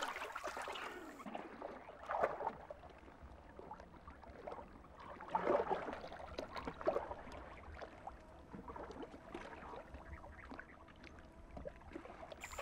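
Water splashing and gurgling: soft, irregular splashes, the clearest about two seconds in and twice more near the middle.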